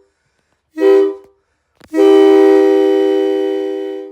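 Homemade PVC air horns imitating a Nathan K3LA three-chime train horn, blown with compressed air and sounding a chord. There is a short blast about a second in, then a click and a long blast of about two seconds.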